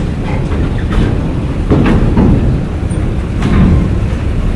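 Heavy semi-trailer carrying a coal railway wagon rolling slowly past: a loud, low rumble with a couple of sharp metallic knocks.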